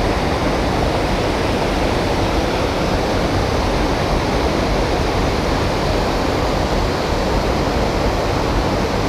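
Creek water rushing over rocks, a steady even rush with no breaks.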